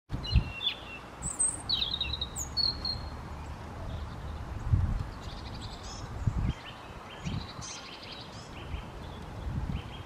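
European robin singing: short, high, thin warbling phrases in the first three seconds, then a longer run of high twittering notes from about halfway on. Several low thumps come through it, the loudest about halfway through.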